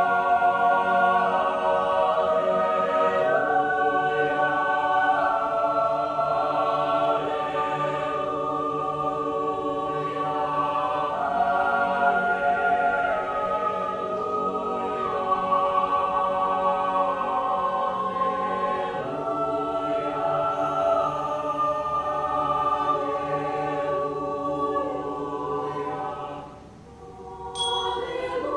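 Mixed-voice choir singing a cappella in sustained chords that shift every few seconds. The sound falls away briefly near the end, then the voices come back in.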